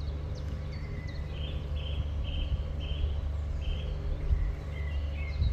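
Outdoor background: a steady low rumble, and from about a second and a half in a bird repeating a short high call about twice a second for a couple of seconds.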